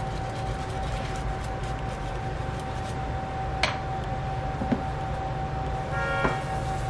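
Waffle-shop kitchen machinery: a steady low hum with a constant thin electrical whine from the rotary waffle irons and kitchen equipment, broken by two sharp clicks in the middle. Near the end there is a brief squeak as the plastic batter jug is picked up over the iron.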